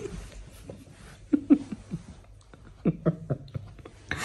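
A man laughing softly in a few short bursts, about a second and a half in and again about three seconds in.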